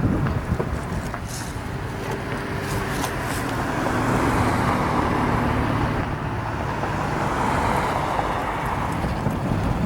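Road traffic: cars driving past with a steady hiss of tyres and engine hum, swelling as vehicles pass about halfway through and again near the end.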